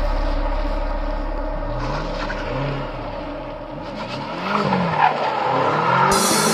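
A car engine revving up and down over and over, about once a second, with tyres squealing as the car drifts away in tyre smoke. A deep music bass fades out over the first few seconds, and a sudden hiss starts near the end.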